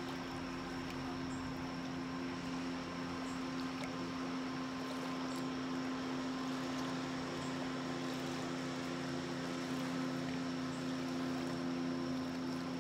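Motorboat engine running at a steady, unchanging pitch, over a constant wash of water.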